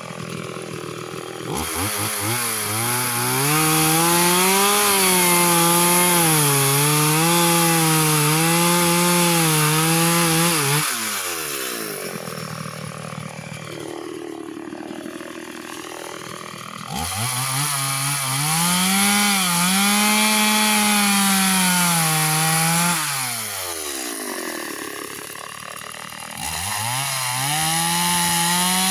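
Two-stroke chainsaw revving up and cutting into a wooden stump three times: near the start, about midway, and again near the end. The engine pitch dips and wavers as the chain bites, and the saw drops back to idle between cuts.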